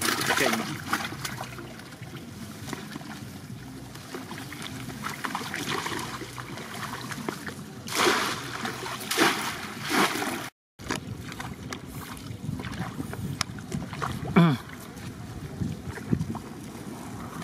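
Wire fish trap rattling and a plastic sack rustling as fish are shaken out, then splashing of someone wading through shallow floodwater. After a short break, a wooden paddle dips and strokes the water from a small boat.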